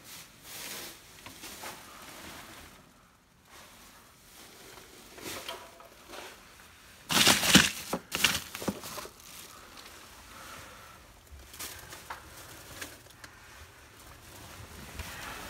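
Plastic rustling and crinkling as cluttered belongings and bags are handled, in scattered bursts with a louder flurry of crackling a little past the middle.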